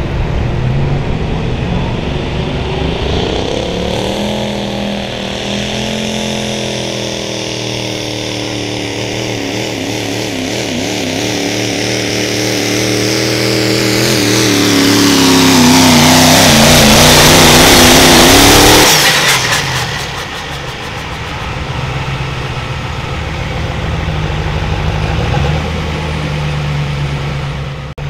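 Chevrolet Silverado HD pickup's turbocharged Duramax diesel V8 pulling a weight-transfer sled at full throttle. The engine note climbs and grows steadily louder, then cuts off abruptly about two-thirds of the way through as the pull ends. It settles to a lower, uneven idle.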